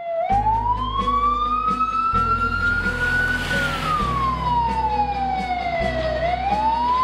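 Ambulance siren wailing: one slow sweep up for about three seconds, down for about three, and rising again near the end, over background music with a steady beat and bass.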